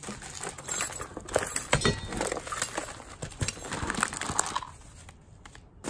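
Hands rummaging through a cardboard box of assorted small items: plastic packaging rustling and hard objects clicking and clinking against each other, dying down near the end.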